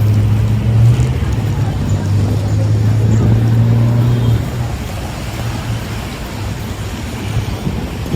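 Motor vehicle engine running with a steady low hum that fades out about four seconds in, over continuous street noise.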